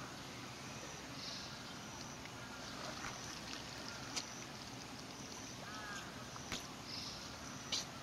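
Water sloshing around a Malayan tapir wading in a pool, with a few sharp splashes as water pours and drips from its mouth, the loudest about four seconds in and near the end.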